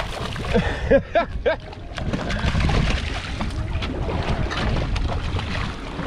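Wind buffeting the microphone and water splashing and sloshing against the side of a small boat as a hooked fish thrashes at the surface and is brought alongside.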